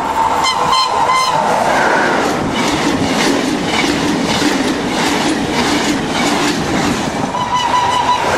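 Electric passenger trains passing at speed close by: a steady rush of wheels on rail with clickety-clack over the joints. A high horn note sounds briefly about half a second in and again near the end.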